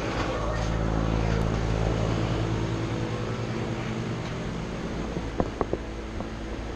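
Steady mechanical hum, with a few sharp metallic clicks about five and a half seconds in.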